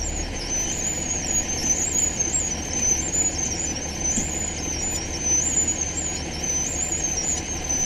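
Hitch-mounted winch running, lowering a boat on a crane hoist, with a high, wavering squeal throughout.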